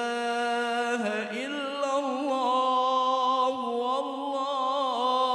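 A man's voice chanting an Islamic prayer in long, drawn-out notes that waver in pitch, with a short break about a second in.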